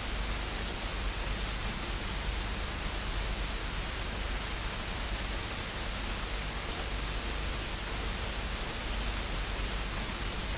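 Steady static hiss, even and unbroken throughout.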